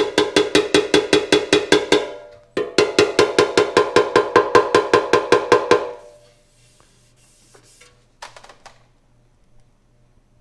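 Rapid light taps on the hollow bare steel gas tank of a Honda CL90, about seven a second, each one ringing like a bell. There are two runs: the first stops about two seconds in, the second starts half a second later and stops about six seconds in. This is tapping down a high spot in paintless dent repair.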